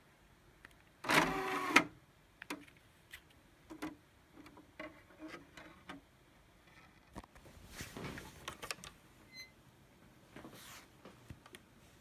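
Motorized CD tray of a Blackweb boombox running open with a short whir about a second in, followed by scattered clicks and handling sounds as a disc is set on the tray, and softer motor whirs later on.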